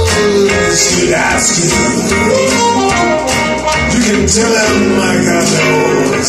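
Recorded music played through a hi-fi system: a single-ended amplifier driving a pair of floor-standing speakers. It is picked up by a mobile phone's microphone in the listening room.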